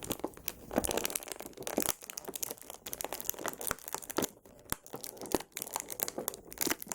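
Plastic blister tray and packaging crinkling and crackling as an action figure and its parts are worked out of it, a quick irregular run of crackles and snaps.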